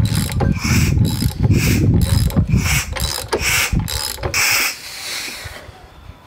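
Ratchet wrench clicking in repeated strokes, about one a second, as the 1KZ-TE diesel's crankshaft is turned over by hand through the new timing belt and gears, a check that nothing binds. The clicking stops about five and a half seconds in.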